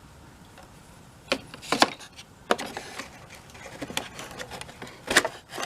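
Metal drill bits clinking and clattering against each other as they are handled in a divided drawer. There are a handful of sharp clinks, the loudest about two seconds in and again near the end.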